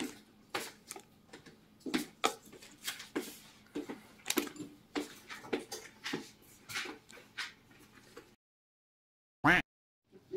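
Irregular clicks and clinks of tableware and plastic food containers being handled on a dining table. They cut off abruptly about eight seconds in, and near the end comes one brief, loud, wavering pitched sound.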